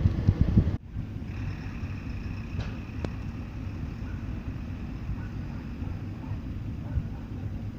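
Low, steady running of a train's engine, with wind buffeting the microphone at first. About a second in the sound breaks off abruptly and resumes as a steadier low rumble with a faint high whine and a couple of light ticks.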